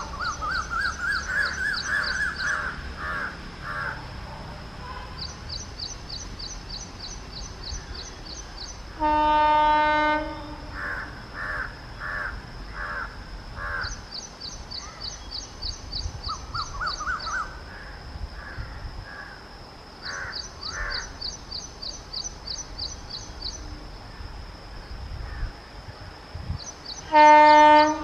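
Crows cawing with other high, rapid bird chirping over a low rumble, broken by two steady single-tone blasts of an approaching WAP-7 electric locomotive's horn, one of about a second a third of the way in and a shorter one at the end.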